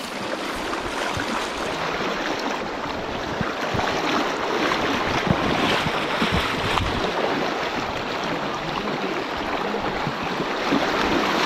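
Fast, shallow river water rushing over rocks: a steady rush of moving water.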